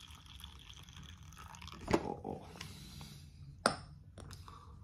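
Two sharp knocks of things set down on a tabletop, about two seconds in and again a second and a half later, with faint handling noises between, as a glass mug of coffee is brought to the table.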